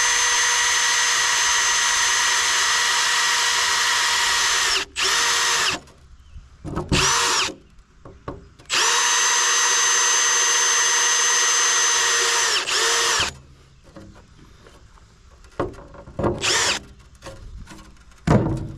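Power drill running at full speed in two long steady runs of about four to five seconds, with a few short bursts between and near the end; its whine drops in pitch each time the trigger is released and it winds down.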